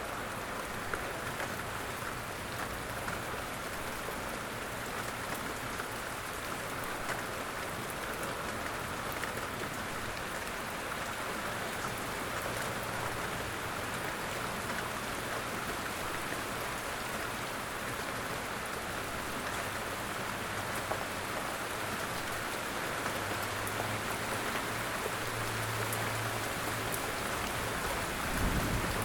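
Steady light rain falling in woodland. A faint low hum joins it partway through, and there is a brief dull low thump near the end.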